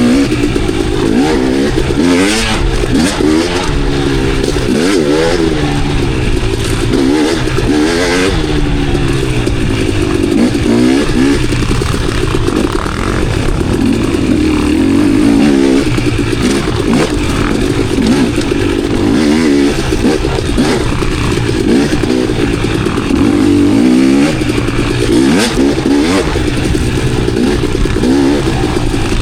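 Dirt bike engine revving up and down continuously as it is ridden on trail, its pitch rising and falling with the throttle, with occasional clattering knocks.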